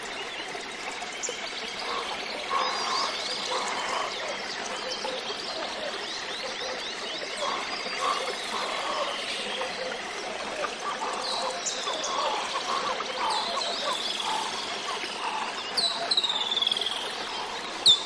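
Forest ambience of many birds chirping and calling, with rapid short chirps throughout and several clear down-slurred whistles in the last few seconds.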